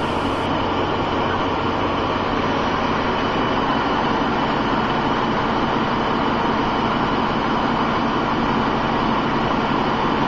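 Train running at steady speed, a constant rumble and hiss with a few steady hums underneath.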